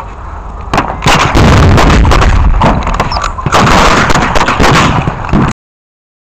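Close, loud gunfire from blank-firing weapons in a re-enactment battle. The shots start about a second in and come thick and fast, then the sound cuts off abruptly near the end.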